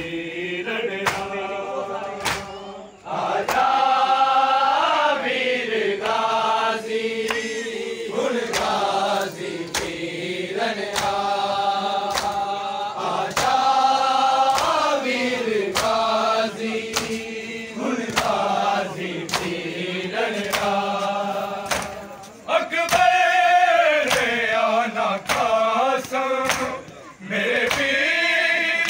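A group of men chanting a noha, a Shia lament, in long held lines. Under the chant run the steady slaps of matam, open hands striking bare chests in time, about one stroke a second.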